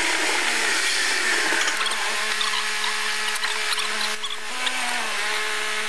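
Car driving slowly, heard from inside the cabin: a whining engine tone that steps up in pitch about four and a half seconds in and glides back down half a second later, over a steady hiss.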